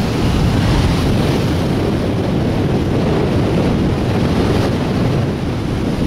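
Strong wind buffeting the microphone over the steady wash of waves breaking on the shore.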